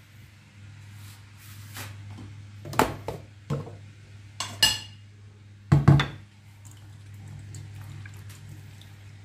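Dishes and a stainless steel bowl knocking and clinking on a kitchen counter, in a run of sharp strikes about three to six seconds in, one of them ringing. The loudest knock comes near six seconds. A steady low hum runs underneath.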